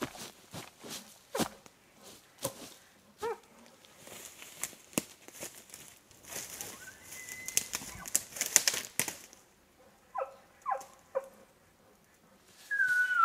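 Rustling, crunching and snapping of footsteps through brush and dry twigs, in uneven clusters. About ten seconds in come three short calls in quick succession, each falling quickly from high to low, the kind of call made when calling to a bull elk.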